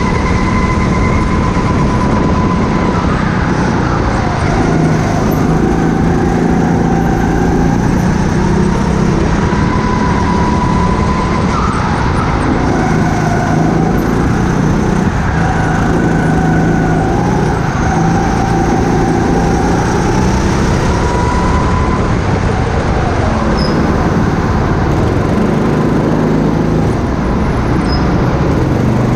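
Go-kart engine running at speed, heard from the driver's seat, its pitch rising and falling with the throttle through the corners of a lap, easing off near the end as the kart turns into the pit lane.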